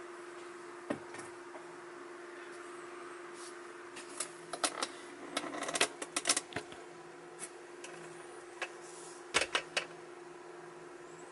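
Irregular sharp clicks and taps in quick clusters, bunched about four to six seconds in and again near nine and a half seconds, over a steady low hum.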